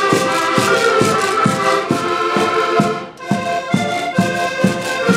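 Several button accordions playing a folk tune together: sustained reedy chords over a steady bass-and-chord beat of about two strokes a second. There is a brief break in the sound about three seconds in.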